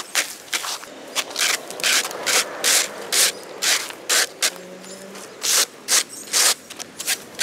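Plastic leaf rake scraping debris along a concrete gutter in quick repeated strokes, about two a second, with a brief pause about halfway through.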